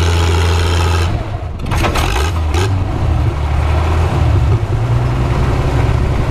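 Antique farm tractor engine working under load as it drags a weight sled. About a second in its steady drone breaks off and there are a few brief noisy strokes, then it runs on with a rougher, lower-pitched rumble.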